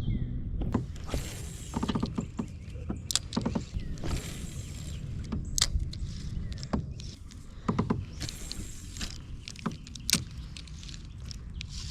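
Paddling a small craft on the water: paddle strokes swishing through the water every few seconds, with a few short creaks and knocks from the boat and gear.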